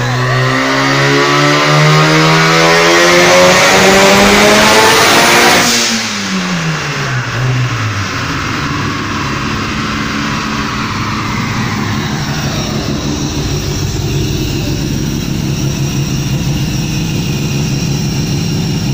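Turbocharged bridge-ported 13B rotary engine of a Mazda RX-7 FC on a chassis dyno, revving up steadily under load through a pull for about six seconds. It then lifts off sharply, the revs falling away over about two seconds, and runs steadily at low revs after that.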